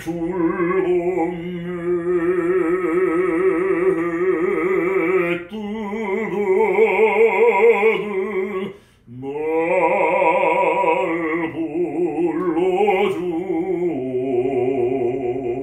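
A man singing in classical operatic style, holding long vowels with a wide vibrato, in four phrases with short breaths between them.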